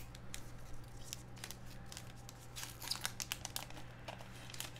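Foil trading-card pack wrappers crinkling and tearing open in short, scattered crackles, over a faint steady low hum.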